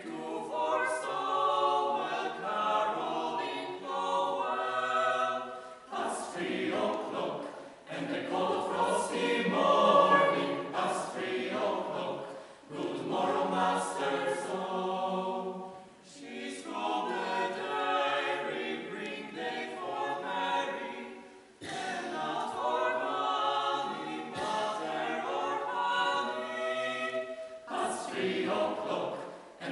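Mixed-voice choir singing a cappella, in sustained phrases with short breaks between them.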